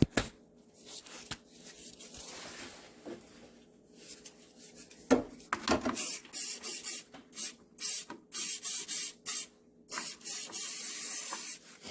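Aerosol sensor cleaner spraying in a series of short hissing bursts onto corroded relay-socket terminals, with a fainter spray early on and a click before the main bursts.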